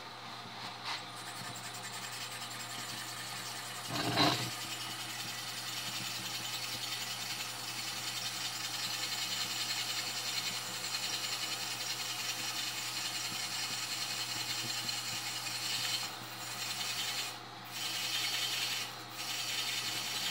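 Ridgid drill press running with its bit grinding slowly into a wooden block: a steady rasping scrape over the motor's hum. There is a brief louder screech about four seconds in, and near the end the rasping breaks off briefly several times.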